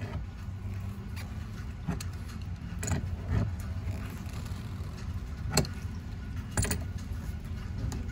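A handful of sharp metal clicks and clinks from an adjustable wrench and tongue-and-groove pliers working the packing nut of an outdoor hose bib as it is snugged down on the freshly repacked valve stem, over a steady low rumble.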